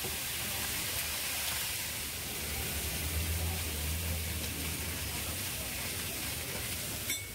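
Dosa sizzling on a hot griddle under its pasta topping: a steady soft hiss, with a low hum for a couple of seconds in the middle and a short click near the end.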